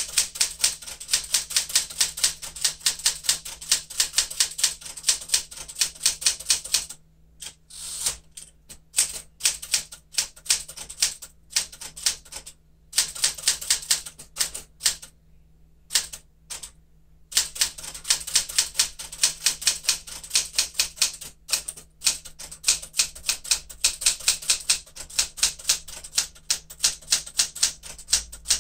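Smith-Corona Galaxie Twelve manual typewriter being typed on: rapid runs of sharp keystrokes, several a second, broken by a few short pauses.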